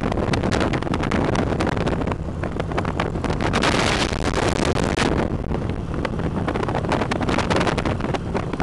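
Wind buffeting a handheld camera's microphone on a moving motorcycle, with the motorcycle's engine and road noise running underneath. The gusting is rapid and uneven, at a steady overall level.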